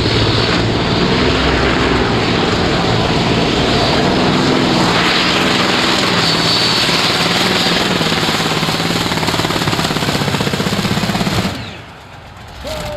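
Dragonfire pulling tractor's 42-cylinder, 147-litre engine running at full power while pulling the brake sled, a loud steady drone with a wavering pitch. It cuts back sharply about eleven and a half seconds in.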